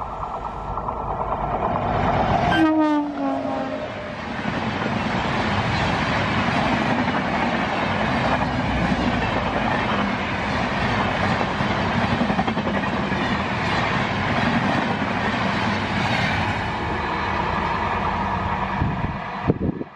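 WAP-7 electric locomotive's horn sounding as it approaches, its pitch dropping sharply as the locomotive passes at speed about two and a half seconds in. Then comes the steady rush and wheel clatter of the express's coaches going by, which cuts off abruptly near the end.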